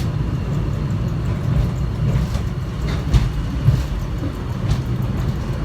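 Airport subway train running, heard from inside the car: a steady low rumble with a few scattered knocks and rattles as the car shakes on the track.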